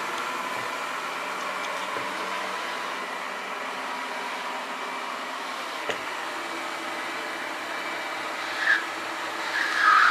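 Ecovacs Deebot T9+ robot vacuum running on a hard floor: a steady whir with a faint high whine. A single click about six seconds in, and two brief, louder higher-pitched sounds near the end.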